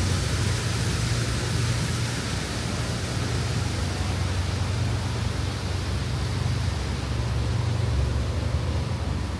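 Steady rushing of water from a cascading fountain, its hiss growing fainter through the second half as it falls behind, over a steady low rumble.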